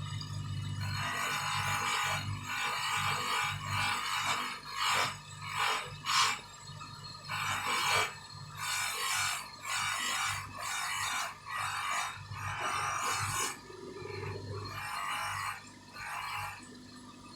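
Rubbing strokes of hand-polishing on a watch, rough and scratchy, coming roughly once a second and thinning out near the end, over a low steady hum.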